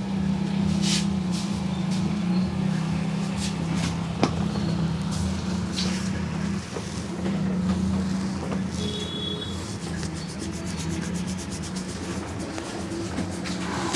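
Hands rubbing over skin during a massage, over a steady low hum, with a single sharp click about four seconds in.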